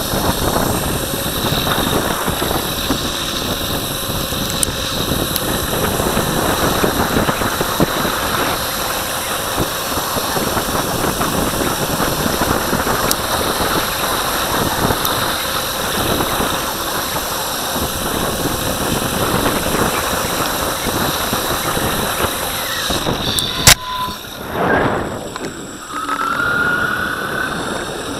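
Electric mountainboard rolling on asphalt: a steady, noisy rumble of its pneumatic tyres and drive motor. A sharp click comes about 24 s in, the noise dips briefly, and a short rising whine follows near the end.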